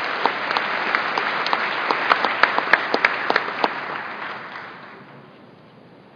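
Convention audience applauding, with many sharp individual claps, dying away about four to five seconds in.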